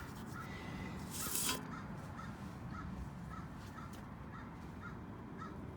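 A bird calling in a steady run of short, evenly spaced calls, about two a second, over a low background rumble. There is a brief noisy burst about a second and a half in.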